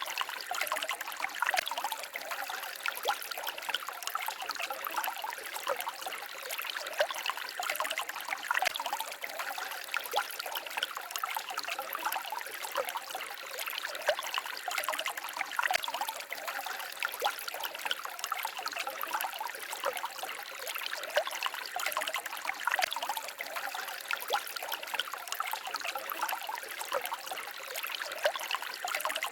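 Small forest stream babbling and trickling over stones, a steady run of tiny splashes and gurgles.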